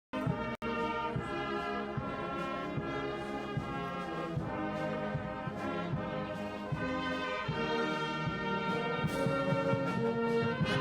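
Music led by brass instruments playing a melody with sustained notes, cutting out for an instant about half a second in.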